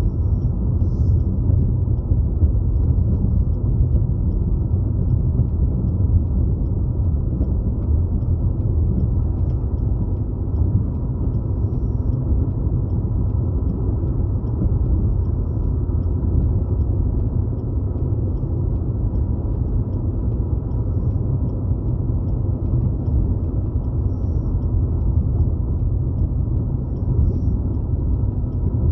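Steady low road and engine rumble inside a car cruising at highway speed.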